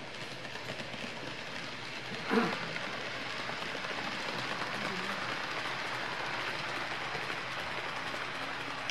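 HO-scale model train, an EF64 electric locomotive hauling Salon Express coaches, rolling past on layout track: a steady running rattle of wheels on rail that grows a little louder as the coaches pass. A short, loud, voice-like sound cuts in about two and a half seconds in.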